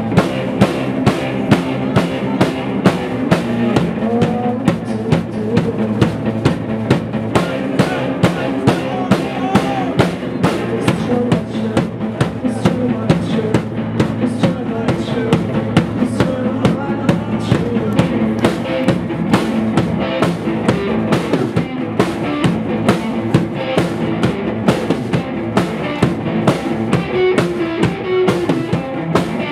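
Live band playing a song: a drum kit keeping a steady beat under electric guitar, with a woman singing into a microphone.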